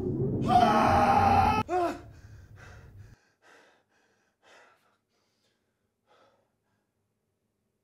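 A man gasps sharply as he wakes with a start, followed by a short falling breath and then several quieter, spaced breaths that die away. A low droning music bed underneath cuts off suddenly about three seconds in.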